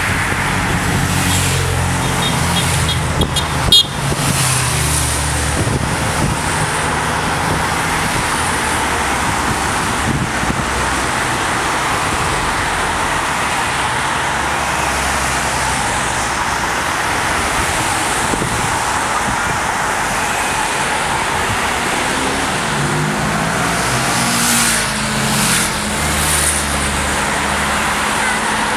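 Race convoy of team support cars and motorcycles driving past: steady engine and tyre noise, with a short car-horn toot and a sharp knock about four seconds in. A motorcycle engine rises and falls in pitch as it passes, about three-quarters of the way through.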